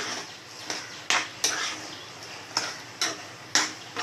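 A metal spoon clinking against a metal cooking pot, about seven sharp ringing knocks at uneven intervals, as the salted gravy is stirred.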